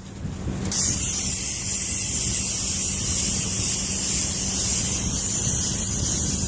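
Steady loud hiss with a low hum underneath, after a brief dip in the first second.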